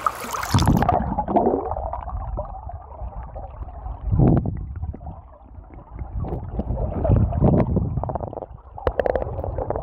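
River water heard through a phone submerged in a shallow, rocky stream: muffled low rumbling and gurgling of the current, with scattered knocks. The high sounds cut off as the phone goes under, about half a second in.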